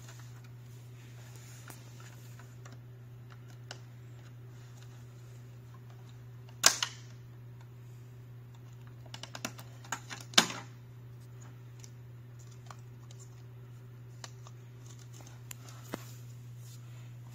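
Plastic clicks and knocks from a Toyota Tacoma's dash radio bezel and its round air vent being handled and worked loose with a screwdriver. There are scattered light clicks and two much louder knocks, one about a third of the way in and one just past halfway. A steady low hum runs underneath.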